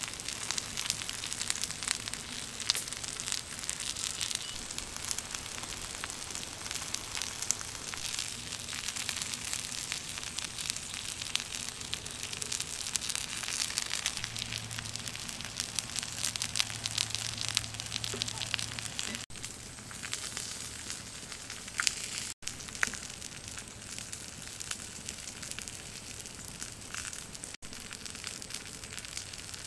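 Small wood fire crackling under a flat stone while whole fish sizzle on it, a dense run of small crackles and pops, a little sparser in the second half.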